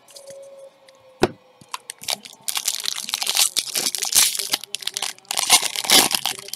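Foil wrapper of a Bowman Draft baseball card pack being torn open and crinkled. A sharp click about a second in, then from about two seconds in a few seconds of dense, rapid crackling as the foil is pulled apart and crumpled.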